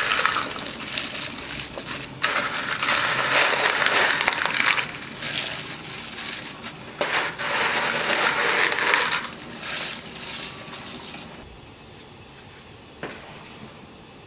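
Broken dry reshteh noodles crackling and rattling as they are shaken out of a bowl into a pot of soup, in three spells of about two seconds each. After that it falls to a quiet steady background with a single click near the end.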